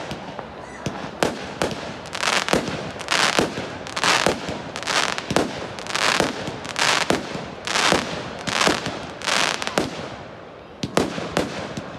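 Fireworks display: a rapid string of aerial shell bursts, sharp bangs about one or two a second, many trailed by a short hiss. A brief lull comes about ten seconds in before more bangs.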